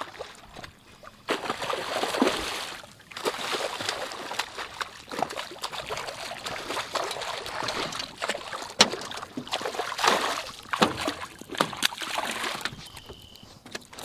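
A hooked redfish thrashing at the surface beside a boat: irregular bursts of splashing and sloshing water with sharp slaps among them, dying down near the end as the fish is lifted out.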